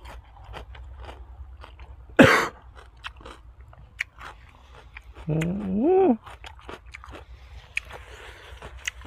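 A person chewing and crunching food, with many small smacking clicks and one loud crunchy bite about two seconds in. A short rising hum from the eater comes about halfway through.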